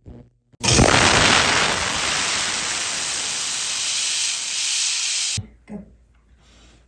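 Jewelry steam cleaner's jet hissing steadily on a gold ring, blowing off remaining polishing residue. The hiss starts suddenly about half a second in and cuts off after about five seconds.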